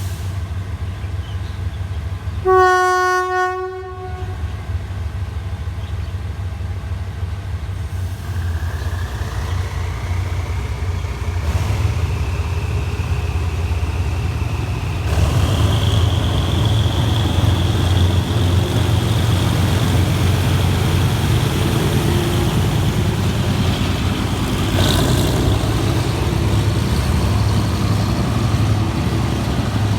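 A diesel locomotive of the GEK class sounds one short horn blast about three seconds in, then its engine runs steadily as the train moves off, with a whine rising in pitch and the running getting louder as the train picks up speed.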